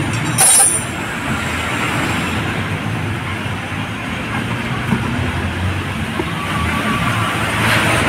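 Steady background noise of road traffic, with a brief shrill scrape about half a second in.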